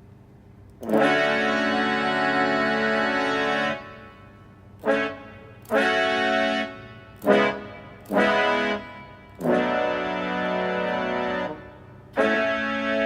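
Roland GR-20 guitar synthesizer sounding a sustained synth patch, recorded through a phone's microphone: one long held note of about three seconds, then a run of shorter notes, another long note and a final note near the end.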